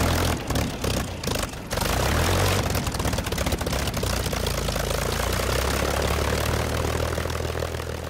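Propeller aircraft's piston engine starting: a series of irregular coughs and pops for the first second or two, then catching and running steadily. It fades out near the end.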